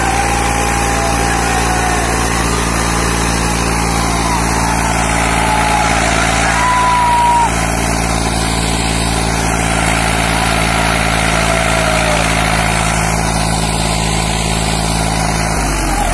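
Eicher 485 tractor's three-cylinder diesel engine running at steady revs under heavy load, pulling against a crowd hauling back on a rope while its rear wheels dig into the soil. The drone holds even until the revs drop near the end.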